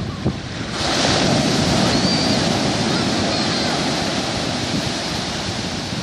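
Ocean wave breaking on a sandy beach. The rush of surf swells sharply about a second in, then slowly eases as the foam washes up the shore, with wind buffeting the microphone.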